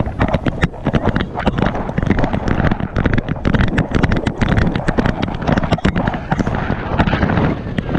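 Rapid, irregular knocking and rattling from a camera jostling in its harness on a moving bloodhound's back, over the rush of wind on the microphone.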